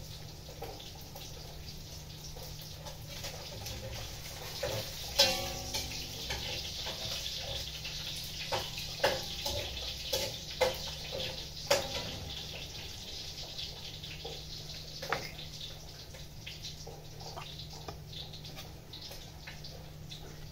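Cabbage and a kitchen knife handled on a wooden cutting board: a few scattered sharp knocks and rustles over a steady hiss and low hum.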